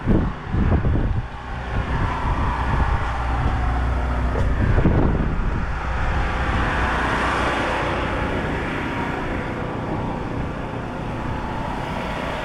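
Strong wind buffeting the microphone in gusts, over a steady low engine-like hum.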